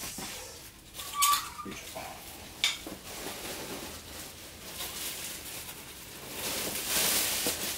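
Handling noises: a few sharp clicks and knocks over faint rustling, then a longer rustle near the end.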